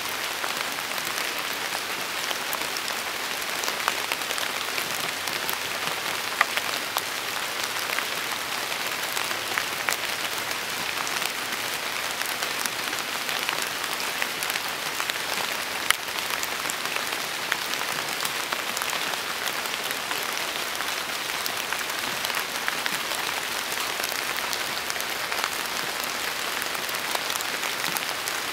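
Steady rain falling in a storm, heard from under an oak tree: a dense, even patter of drops with occasional louder single drips.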